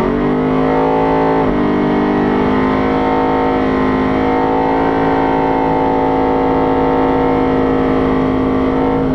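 Drag car's engine revved up sharply and held at steady high revs for several seconds, with a brief dip about a second and a half in, while the rear tyres spin in a burnout. Heard from inside the car's cabin.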